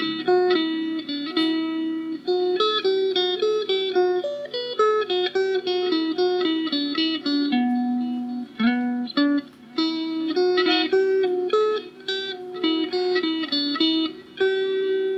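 Background music: a quick, plucked guitar-like melody of short notes over a steady lower note.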